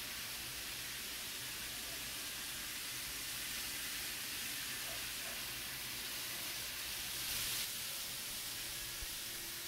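Several N-scale model trains running at once on their track, a steady whirring hiss of small wheels and motors. A brief louder rush comes about seven seconds in.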